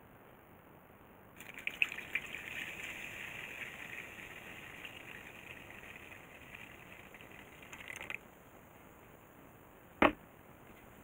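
Water poured from a plastic cup into a plastic measuring jug of baking soda and citric acid, splashing steadily for about seven seconds. Near the end, a single sharp knock as the plastic cup is set down on the wooden table.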